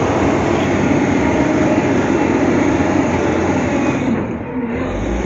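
Diesel engine of heavy earthmoving machinery working under load: a loud, dense mechanical rumble. Near the end the higher noise drops away and the engine note rises.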